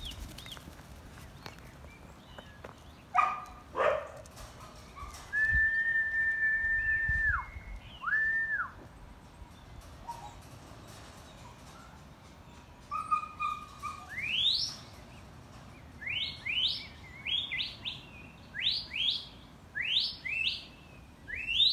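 Shepherd's whistle commands to a working sheepdog: two quick sweeping whistles, a long level note that drops off at its end, and a short note. After a pause comes a string of quick rising whistles.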